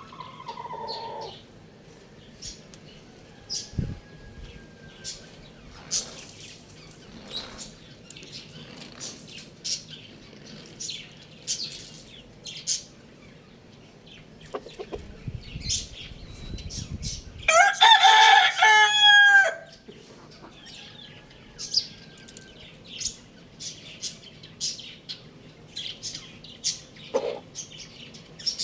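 A rooster crows once, a call of about two seconds a little past the middle, the loudest sound heard. Small birds chirp in short high notes throughout, and a low rustling noise runs for a couple of seconds just before the crow.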